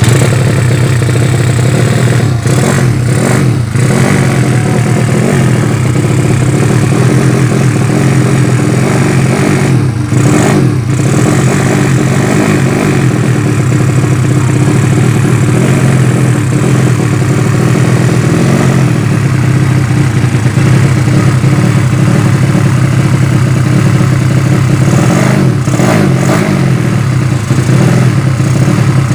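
Single-cylinder four-stroke 200cc motorcycle engine (Yamaha Vega ZR with a bored Mio cylinder) catching just as it starts, then running at a fast idle with a few throttle blips. Its carburettor is not yet set up to suit the engine.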